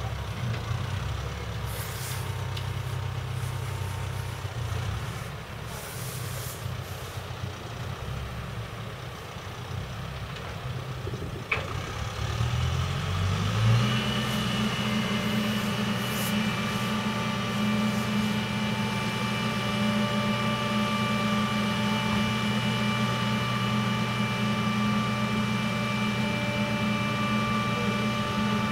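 Caterpillar 355 telehandler's diesel engine running at idle, then revving up about halfway through and holding a steady higher speed with a steady whine above it as the boom is lowered under hydraulic power.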